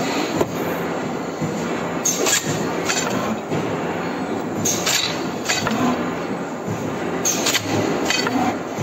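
CNC oil duct bonding machine for transformer insulation running: a steady mechanical rumble, with sharp clicks and clacks at irregular intervals.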